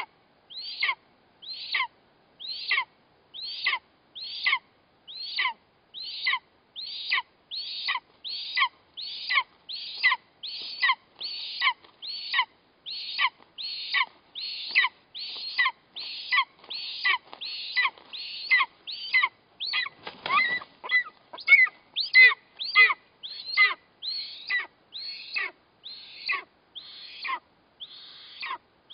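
Eastern imperial eagle chick begging: a steady series of short, high, downward-slurred calls, about one and a half a second, growing more insistent in the second half as the adult stands over prey. A brief rustle of wings about twenty seconds in.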